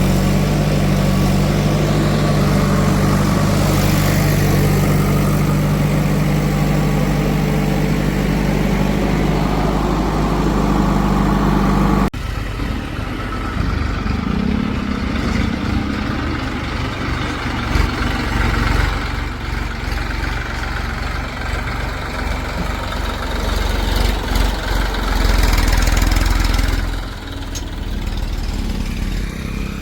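Heavy diesel machinery engine running at a steady idle, then, after an abrupt cut about twelve seconds in, running unevenly with its level rising and falling as it works.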